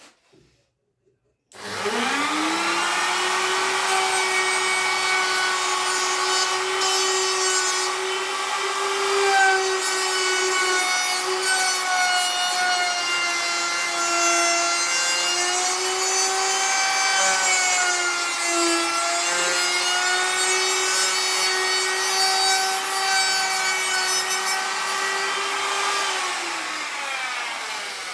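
An electric power tool grinding or sanding in a knife-making workshop. It starts about a second and a half in and runs up to speed with a steady whine over a rasping grind. Its pitch dips slightly now and then as the work is pressed against it, and it begins to wind down near the end.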